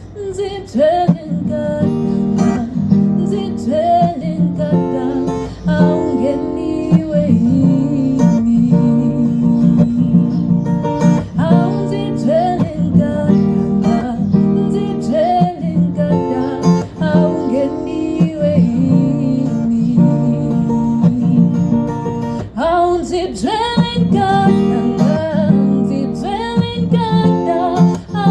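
A song led by a plucked guitar, with a voice singing over it.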